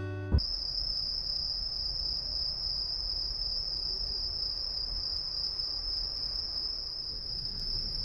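Autumn insects calling: one steady, unbroken high-pitched trill.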